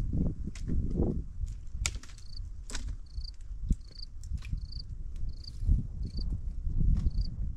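An insect's short high chirp repeating steadily, about three every two seconds, over low rustling and crunching of footsteps on dry stony ground, with scattered sharp clicks of twigs or stones.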